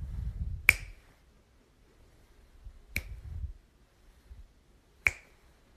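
Three sharp snaps or clicks, evenly spaced about two seconds apart, the first the loudest, over a faint low rumble of a phone being handled.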